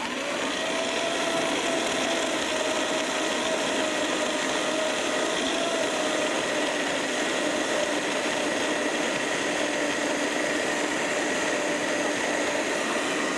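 Countertop blender switched on and running steadily, puréeing firm tofu, water and cashews into a thick cream: a loud, even motor whine.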